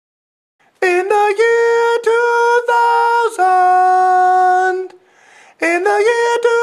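A man singing high, drawn-out notes with a few pitch changes, starting about a second in, breaking off near five seconds and starting again shortly before the end.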